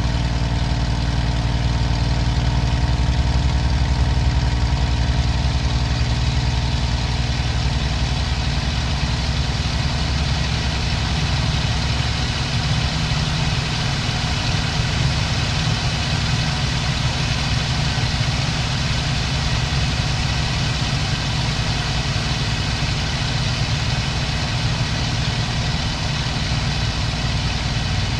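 Daimler-Benz DB 605 inverted V12 engine of a Messerschmitt Bf 109G-2, heard from inside the cockpit, running totally steady at the top of a loop without faltering.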